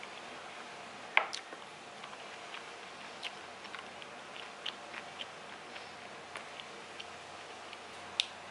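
Irregular light clicks and taps of hands setting sliced kimbap into a clear plastic lunch container, over a steady hiss. The sharpest click comes about a second in, another near the end.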